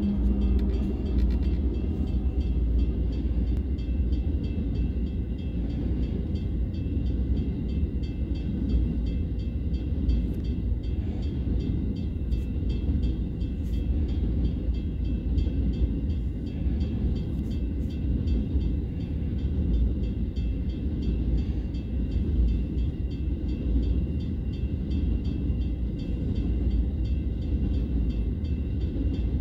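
CBH grain freight train passing a level crossing: a diesel locomotive's engine is heard briefly in the first second or so, then a steady rumble of grain hopper wagons rolling by on the rails. A regular high-pitched ringing repeats throughout, typical of the crossing bell, and the whole is heard from inside a stopped car.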